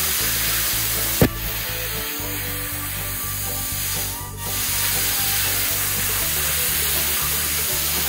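BestArc BTC500DP plasma cutter torch hissing steadily as its arc and air stream gouge into a steel circular-saw blade. The hiss breaks off briefly about four seconds in and then resumes. There is a sharp click a little after one second in.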